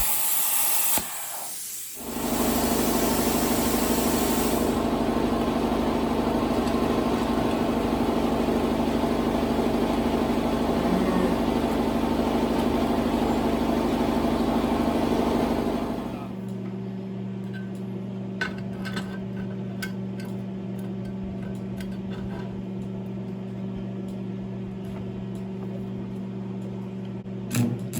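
Plasma cutter running: a loud steady hiss of arc and air for about fourteen seconds, which drops off about sixteen seconds in to a lower steady hum with scattered light clicks.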